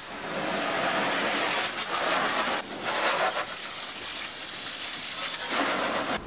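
Water jetting from a garden hose spray nozzle and spattering on a pickup truck's metal body panels and alloy wheel: a steady hiss that swells and dips as the jet moves over the surfaces.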